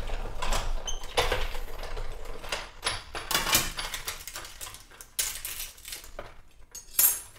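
Sizzix die-cutting machine and its plastic cutting plates being worked by hand: irregular clattering and clicking of the plates and platform, mixed with paper rustling, with one sharp click near the end.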